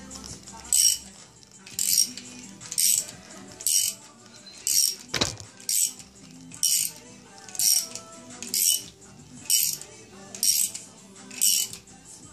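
Crankshaft installer tool being worked by its T-handles: a metallic rattling clink about once a second as the handle is turned round, with one sharper knock about five seconds in.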